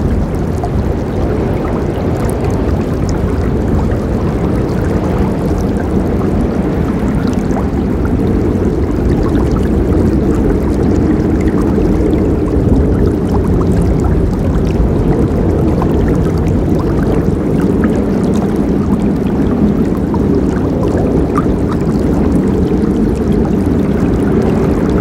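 A river running steadily, a full, low rush of flowing water with faint splashes above it.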